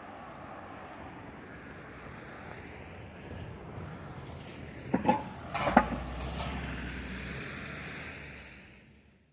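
A passing vehicle's steady road noise builds, then fades away near the end. Two sharp knocks come about five and six seconds in.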